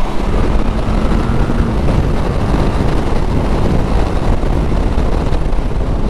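Motorcycle riding at freeway speed: steady wind rush on the microphone mixed with engine and road noise.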